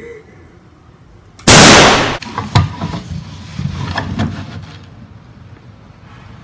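A single loud gunshot bang about a second and a half in, followed by a couple of seconds of scattered knocks and clatter.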